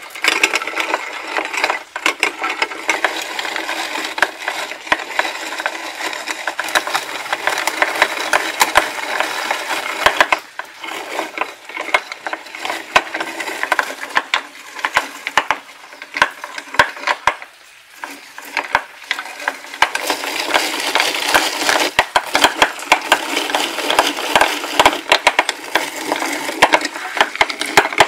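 Hand-cranked rotary drum grater grinding walnut kernels: a dense, steady crunching and crackling of nuts shredded against the metal drum, pausing briefly a few times.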